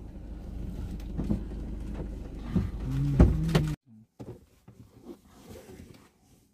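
Steady low rumble of a Maruti Suzuki car's engine and road noise heard inside the cabin, with two short louder sounds near its end. Just under four seconds in it cuts off abruptly to near quiet with faint knocks and rustles.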